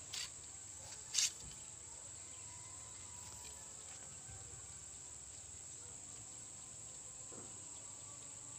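Faint, steady high-pitched chorus of insects, crickets or similar, droning without a break, with two brief soft noises about a second apart near the start.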